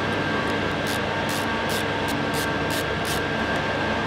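Ratchet wrench backing out a seat bolt under the tail of a Honda CRF50: seven short rasping ratchet strokes, about three a second, over a loud steady machine hum.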